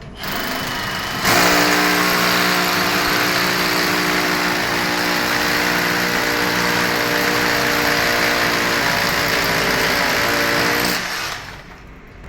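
A power tool's motor running steadily for about ten seconds: it starts softer, gets louder about a second in, and stops about a second before the end.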